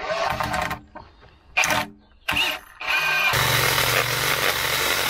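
Ryobi 18V cordless drill driving a screw through a metal bracket into a timber beam in short bursts. About three seconds in, a Ryobi cordless chainsaw starts up and runs steadily as it cuts through a thin tree trunk; its chain has lost some sharpness.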